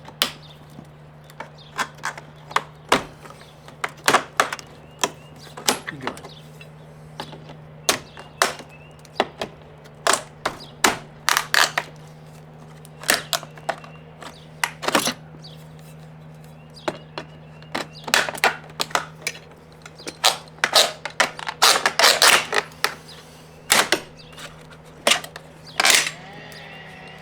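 Irregular sharp clicks and knocks of hand tools and hard plastic as a balance cover is pried out of a vinyl window frame, coming in quick clusters now and then. A steady low hum runs underneath.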